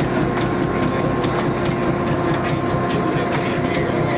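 Belt-driven antique cotton gin machinery running empty: a steady mechanical clatter of rapid clicks over a hum with several held tones.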